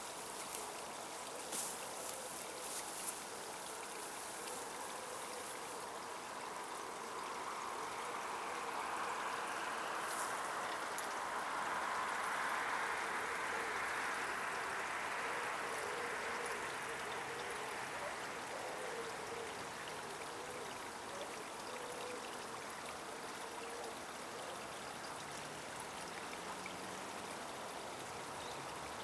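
Water of a small river trickling and flowing steadily, swelling a little louder through the middle.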